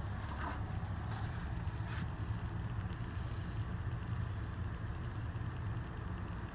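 Hunter 1886 ceiling fan running steadily on medium speed: a low, even rumble of moving air from the blades.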